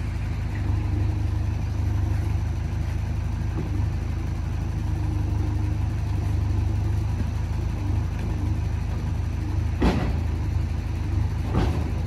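Heavy diesel engine running steadily with a deep drone. Near the end come two sharp knocks, under two seconds apart.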